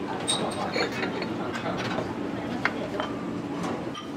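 Restaurant kitchen clatter: dishes and utensils clinking and knocking in short, irregular clicks over a steady low hum.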